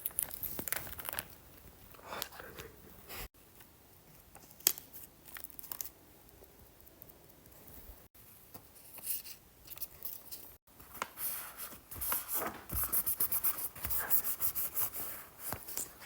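Small objects and packaging handled close to the microphone: rustling, scraping and scattered clicks, with a fast run of clicks, about four a second, near the end.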